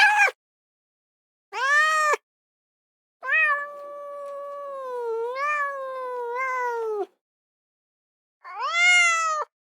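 A domestic cat meowing four times: two short meows, then a long, drawn-out meow of about four seconds that wavers in pitch, and a last short meow near the end.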